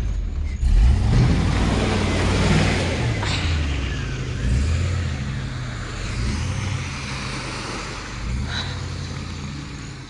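GMC 2500HD pickup's engine revving in repeated surges, rising and falling, as the two-wheel-drive truck is rocked back and forth to free it from wet sand where it is stuck. The loudest surge comes about a second in.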